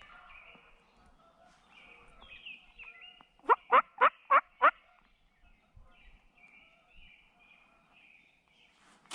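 Wild turkey gobbler gobbling once, about three and a half seconds in: one fast run of about five loud rattling notes, over faint songbird chirping.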